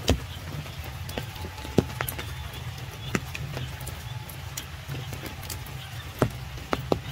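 Scattered raindrops dripping into puddles and onto leaves: irregular sharp taps, about one or two a second, over a steady low rumble.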